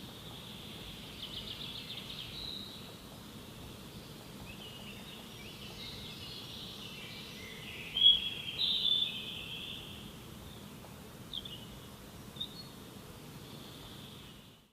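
Forest birds singing and calling over a steady low background noise, with a rapid trill about a second in and the loudest calls a little past the middle.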